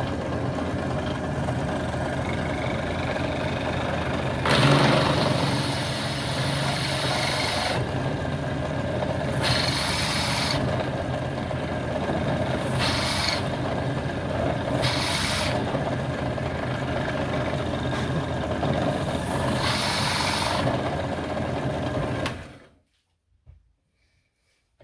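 Benchtop drill press motor running steadily while its drill bit bores into a mother-of-pearl pen blank. The cutting gets louder in several short spells as the bit is fed in. The motor is switched off near the end and the sound stops.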